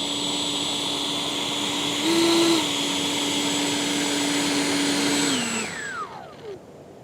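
Electric ducted fan of an E-flite Viper 70mm RC jet whining steadily at close range, with a short rise in pitch about two seconds in as the throttle is blipped, then spooling down with a falling whine about five seconds in.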